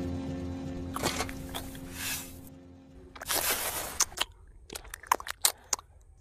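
Background music with a steady held tone that stops about halfway, over a few scraping strokes of a miniature trowel spreading wet cement mortar. Near the end come a quick run of small clicks and scrapes as the trowel works the mortar in a plate.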